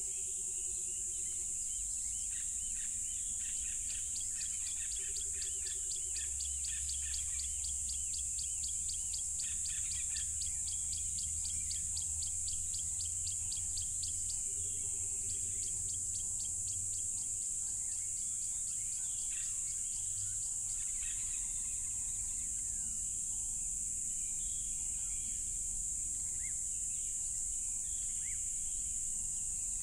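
A dense chorus of crickets making a steady, high-pitched trill throughout, with birds chirping over it. From about 3 s to 15 s in, a fast, even ticking trill runs through the middle of the sound.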